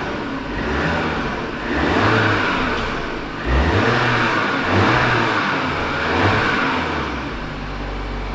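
Audi A5 2.0 TFSI turbo four-cylinder engine on its factory exhaust, revved up and back down several times. The standard exhaust makes it sound dull and muffled, 'wie ein Sack Sülze' (like a sack of brawn), the problem the sport exhaust is meant to fix.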